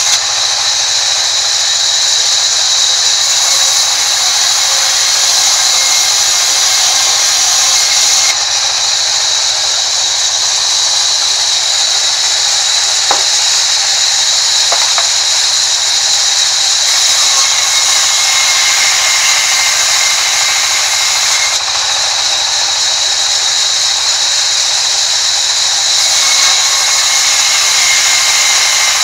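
Sawmill band saw running and cutting lengthwise through a wooden plank: a loud, steady high whine over the hiss of the blade in the wood.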